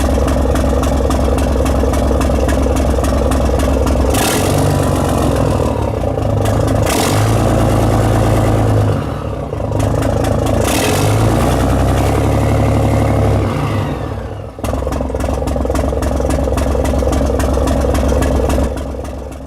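Yanmar 6CX-ET six-cylinder marine inboard diesel running. It is revved up about four seconds in and held at a higher speed, drops back to a lower speed about fifteen seconds in, then fades out near the end.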